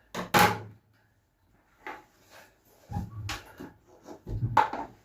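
Handling noises from working with fibreglass repair materials: four separate short rustles and knocks, the first and the last the loudest.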